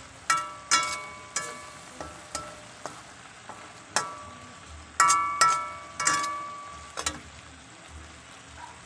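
A metal slotted spatula stirs and knocks against a stainless-steel honeycomb wok, each knock ringing briefly, over a steady sizzle of food sautéing in butter. The knocks come irregularly, about a dozen of them, and die away after about seven seconds, leaving only the sizzle.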